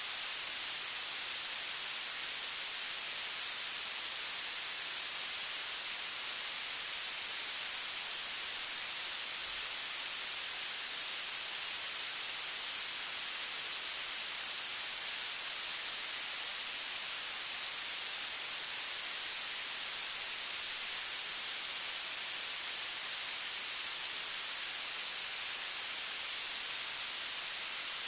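Steady hiss of recording noise, strongest in the high frequencies, unchanging throughout, with no other sound standing out.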